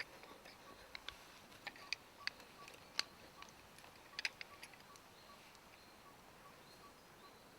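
Small sharp metal clicks and taps of worm-drive hose clamps (Jubilee clips) being handled and slid onto a pump suction hose, a scattered run over the first few seconds that then stops. A faint regular ticking, about three a second, sits underneath.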